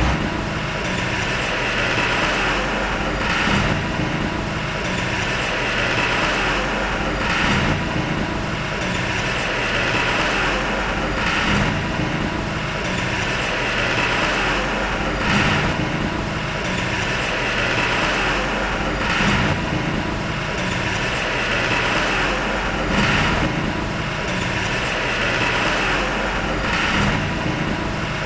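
Heavy diesel earthmoving machinery running steadily under load, with a brief surge in the noise about every four seconds.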